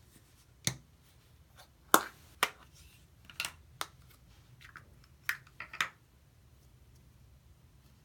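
Sharp plastic clicks and taps, about eight of them with the loudest around two seconds in, as a small Play-Doh tub is opened and handled and the dough taken out.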